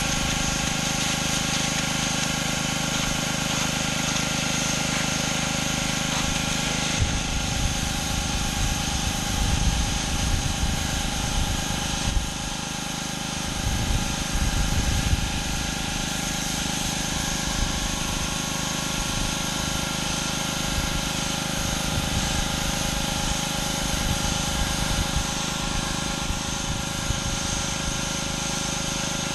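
Pressure washer engine running steadily under the hiss of high-pressure water spray. From about seven seconds in, an irregular low rumbling joins it.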